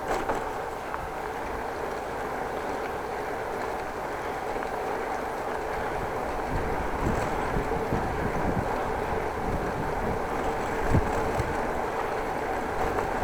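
Bicycle rolling along the road, a steady rumble of tyres and moving parts, with wind gusting on the microphone from about six seconds in.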